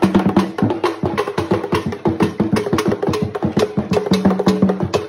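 Traditional Ghanaian drumming for dance: percussion struck in a fast, steady rhythm, sharp clicking strikes several times a second over a repeated pitched drum tone.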